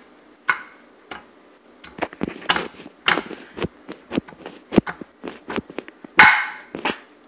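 Spatula chopping and tapping against a nonstick frying pan while breaking up cooked ground beef: irregular knocks, quicker in the middle, with one louder scraping hit about six seconds in.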